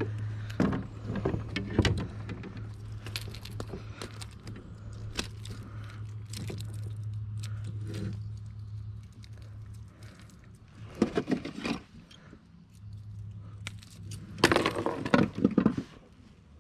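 A small metal fishing lure and its treble hooks jangling and clicking while a hooked white bass is handled and unhooked by hand, with scattered knocks that bunch up about eleven seconds in and again near the end. A low steady hum runs underneath for the first half.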